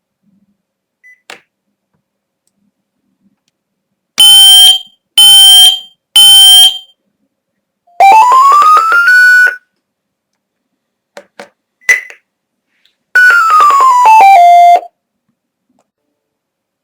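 Electronic pairing tones as a smoke detector is registered to a home social-alarm unit. There are three short, loud beeps about a second apart, then a run of tones rising in pitch, a couple of light button clicks with a short beep, and a run of tones falling in pitch.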